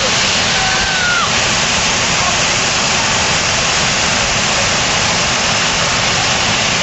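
Ottauquechee River waterfall rushing, a loud, steady, even noise with no pauses.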